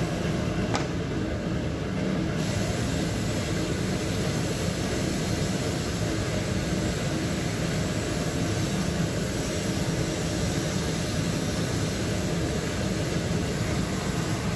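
Dry blast cabinet in use: a steady hiss of compressed air and abrasive media blasting paint and rust off a steel brake pipe, over a low steady hum.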